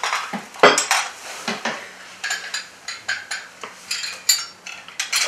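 China soup cups on saucers, with spoons, clinking and rattling as the cups are pulled across a table: an irregular string of short, sharp clinks.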